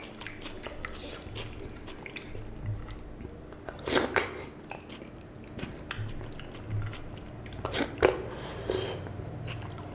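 Close-up eating sounds of a man eating panta bhat (watery soaked rice) mixed with mashed bhorta by hand: wet clicks and squelches of fingers and mouth, and chewing. Louder mouthfuls come about four and eight seconds in.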